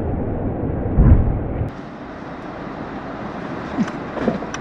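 Low, steady rumble of a vehicle moving slowly on a gravel road, heard from inside the cab, with a loud low thump about a second in. The sound then cuts abruptly to a quieter, thinner hiss with a few faint short sounds near the end.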